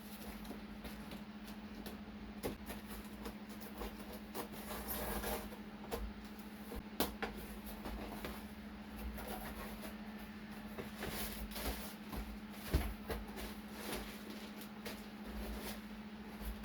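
A large cardboard box being opened and its contents unpacked: scattered clicks, scrapes and short rustles of packaging, over a steady low hum.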